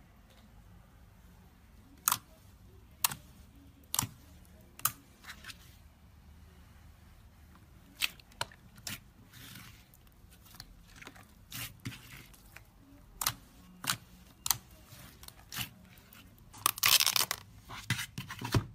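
Thick glossy slime worked by hand, pressed and stretched, giving sharp sticky pops and clicks at irregular intervals. A dense run of crackling comes near the end.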